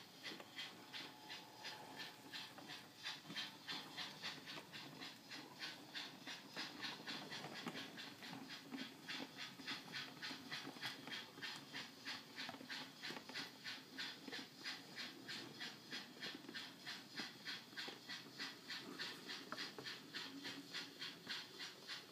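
ESU LokSound DCC sound decoder in an O gauge model locomotive playing an LBSC Terrier steam sound: steady exhaust chuffs at about three a second, over the low rumble of the wagons rolling on the track.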